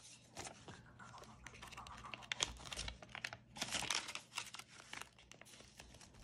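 Paper money and cash envelopes being handled, with irregular rustling and crinkling of the bills, busiest a couple of seconds in.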